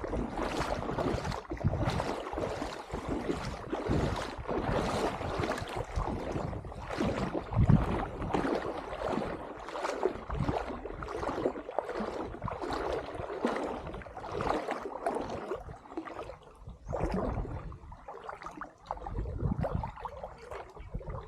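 Wind buffeting the microphone in irregular gusts, over a continuous rushing outdoor noise.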